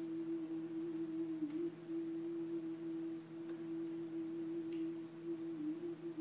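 A steady, nearly pure held tone, like a sine wave or tuning fork, that dips slightly in pitch a couple of times, with a few faint soft ticks over it.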